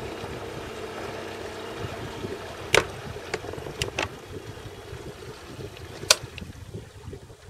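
Small boat afloat on calm water: a low hum and water noise against the hull, the hum fading over the first few seconds, with a handful of sharp clicks or knocks, the loudest about six seconds in.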